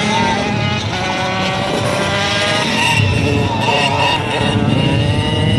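Two racing motorcycles' engines running hard, their pitch rising and falling as the bikes go through a turn and get back on the throttle.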